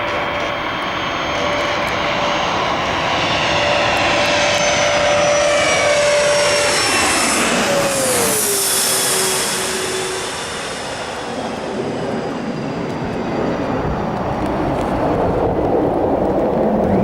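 Bombardier CRJ-200 regional jet passing close on its landing: the whine of its twin rear-mounted turbofans grows louder, then drops sharply in pitch as it goes by about halfway through. The engine noise dips briefly afterwards and builds again near the end.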